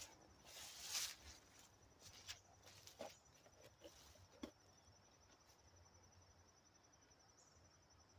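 Faint rustling and a few light knocks over the first four seconds or so, then near silence with faint outdoor background.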